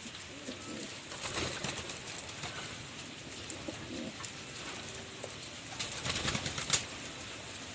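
Birds making soft, low calls a few times, over a hissing background with rustling and a few sharp clicks about six seconds in.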